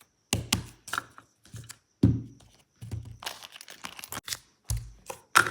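Fidget toys and squishies being handled and passed over: irregular bursts of crinkling and rustling with a few knocks, broken by short silent gaps.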